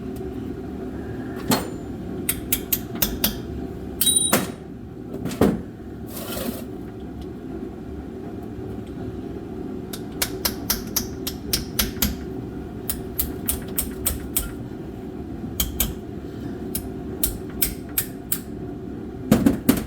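Tools and metal pump parts clicking, clinking and knocking at an irregular pace, with a short metallic ring about four seconds in and a brief hiss about six seconds in, over the steady hum of a shop heater.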